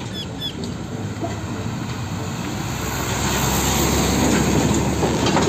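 Isuzu fuel tanker truck driving past, engine running with tyre and road noise, growing gradually louder as it draws level.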